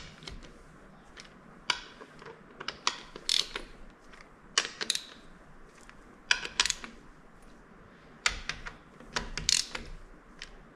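Hand socket ratchet clicking in short bursts with pauses between, as the transmission pump bolts are run down one after another.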